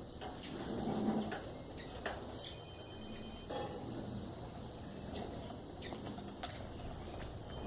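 Birds chirping: short, scattered high notes over a steady outdoor background, with a brief flutter or rustle about a second in.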